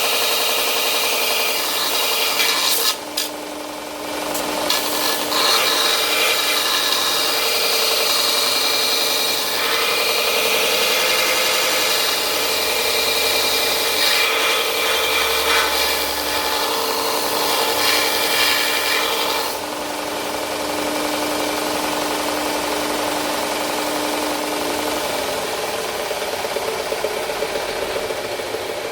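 2x72 belt grinder running with a steel knife blade held against the belt, grinding the bevel in a steady hiss with a short break about three seconds in. About two-thirds of the way through, the grinding noise drops away while the grinder keeps running.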